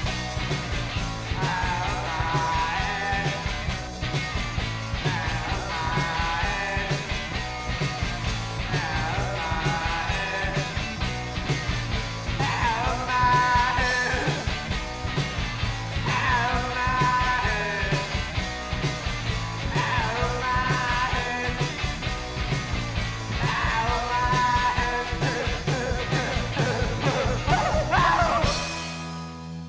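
Live rock band playing: electric guitar, electric bass and drum kit, with the guitarist singing in phrases over them. Near the end the song stops and a final chord rings out and fades.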